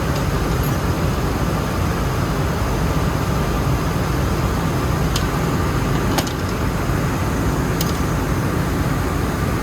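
Rice mill machinery running steadily: a dense, low drone with a faint thin whine over it, and a few sharp clicks or taps in the middle.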